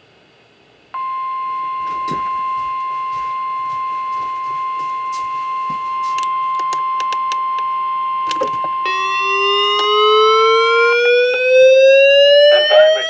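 Weather radios sounding a severe thunderstorm warning. The steady 1050 Hz weather-radio alert tone comes on about a second in and holds, with a few clicks. From about nine seconds a second, siren-like alarm tone rises steadily in pitch over it, and near the end a radio voice begins.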